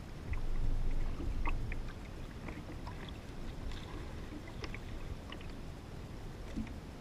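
Small waves lapping against a plastic kayak hull, with scattered light splashes and drips, over a low wind rumble on the microphone that swells for a moment in the first second or two.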